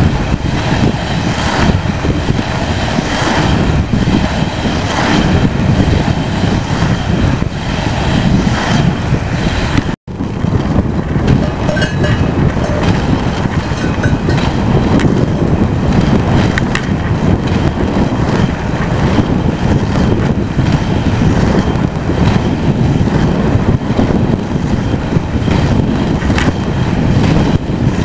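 Inline speed skate wheels rolling over rough asphalt with wind rushing on the microphone: a loud, steady rumble. In the first part it swells in a regular beat about every second and a half to two. The sound breaks off for an instant about ten seconds in, then the rumble carries on.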